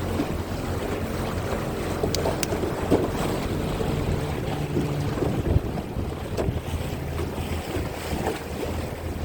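Small boat's motor running steadily under way, a low steady hum, with wind buffeting the microphone. Two sharp clicks a little over two seconds in.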